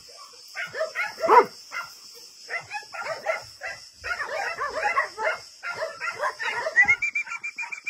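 A dog yipping and whining excitedly in play: many short, irregular calls that bend up and down in pitch, with a longer high whine near the end.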